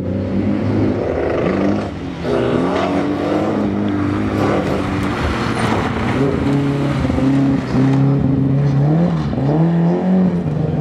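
Mercedes-Benz 190 rally car driving hard over loose gravel, its engine revving up and dropping back again and again through gear changes and lifts in the corners.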